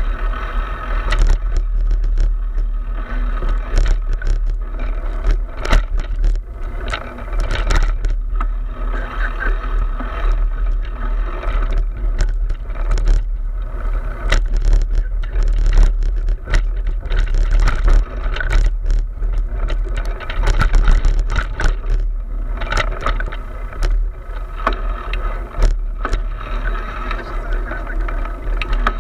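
Wind buffeting an action camera's microphone as it is ridden fast along a bumpy dirt trail, with a steady low rumble and constant irregular rattling and knocking from the mount and the ride over the ground.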